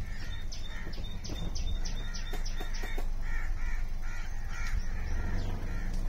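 Birds calling: short harsh calls repeating throughout, with a quick run of sharp high chirps, about three a second, in the first half. A steady low rumble runs underneath.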